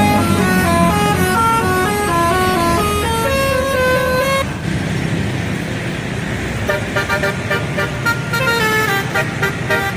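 Indonesian bus telolet horn playing a quick melody of stepped notes. The melody breaks off about four and a half seconds in, leaving engine and road noise, and another faster run of notes starts about two seconds later.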